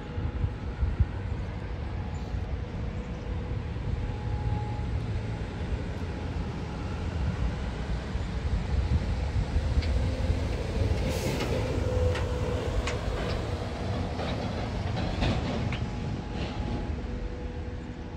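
Diesel-hauled freight train rolling past: a steady low locomotive engine rumble, with a run of sharp clicks and squeaks from the wheels and cars in the second half, where it is loudest.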